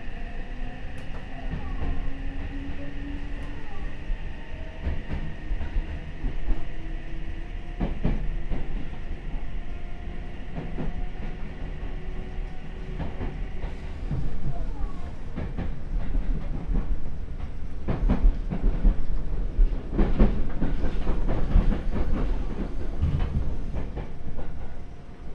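Seibu 6000 series electric train with a Mitsubishi SiC inverter running: the motor whine rises slowly in pitch over the first few seconds as the train gathers speed, over a steady low rumble. A high steady tone stops about halfway through, after which the wheels clack over rail joints more often.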